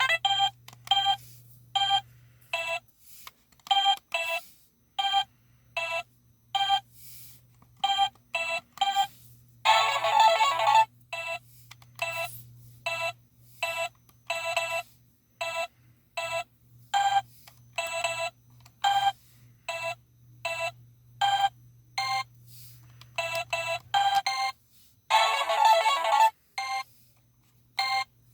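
Electronic handheld game toy playing many short beeps one after another, with a longer jingle twice, about ten seconds in and again near twenty-five seconds. A faint low hum runs underneath.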